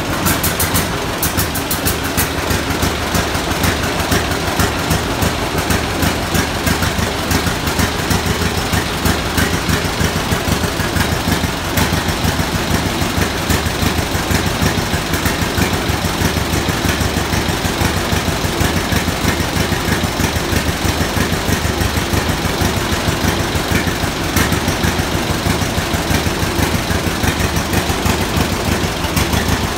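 1931 John Deere Model D's two-cylinder engine running at a steady idle, its exhaust making an even, rapid popping beat.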